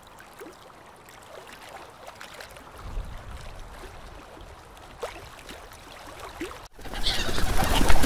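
Scattered short bird calls over a low background. About seven seconds in, a sudden switch to a much louder flock of flamingos honking and chattering.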